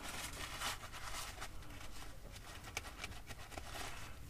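Paper towel rustling and scrubbing in a run of short, irregular strokes as the gasket face of a generator's raw-water pump is wiped clean, over a faint steady low hum.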